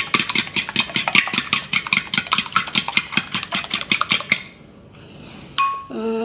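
A fork beating eggs in a ceramic bowl: fast, even clicking strokes of metal against the bowl, about eight a second, stopping about four seconds in. Near the end comes a single ringing tap of the fork on the bowl.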